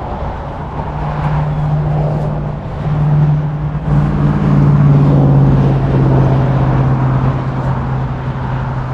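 A motor vehicle's engine running close by with a steady low hum. The hum grows louder and drops a little in pitch around the middle.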